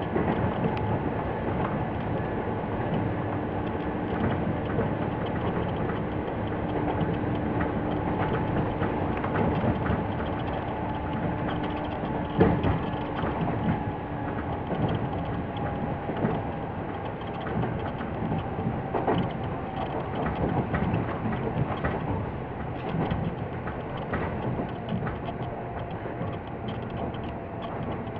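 Toyama Chiho Railway 17480-series electric train running along the line, heard from on board: a steady rumble of wheels on rail with a faint motor hum, and occasional knocks as the wheels pass rail joints, one sharper knock about twelve seconds in.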